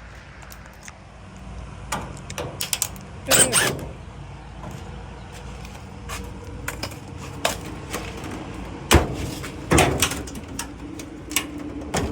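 Scattered knocks, clanks and a short rattle from dryer panels and tools being handled during disassembly, with the loudest knocks about nine and ten seconds in.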